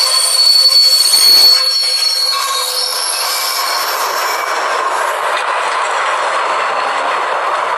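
Diesel train running on the rails: a high, steady wheel squeal for the first two seconds or so, then even rolling noise of the train passing.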